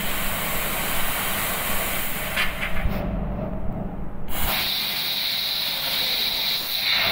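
Steady hiss of gas blowing from a robot-held fiber laser cutting head as it works along a steel frame rail, over a steady low hum. The hiss cuts out about three seconds in for just over a second, then returns with a sharper whistling edge.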